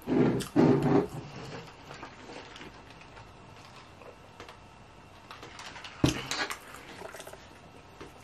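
Close-up eating sounds: chewing and wet mouth noises while eating fried chicken, with two loud short mouth sounds in the first second. A short clatter of tableware comes about six seconds in.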